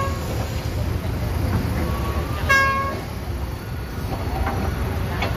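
Diesel engines of a long-reach excavator and dump trucks running steadily. A single short vehicle-horn toot sounds about two and a half seconds in.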